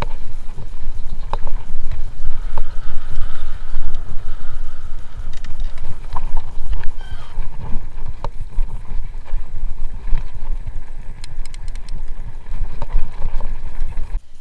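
Mountain bike riding fast down a bumpy dirt singletrack: a constant low rumble of wind and trail on the microphone, broken by frequent rattling knocks from the bike jolting over bumps.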